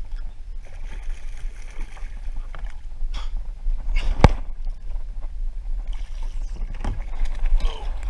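Scattered knocks and rustling over a steady low rumble, the loudest a single sharp knock about four seconds in.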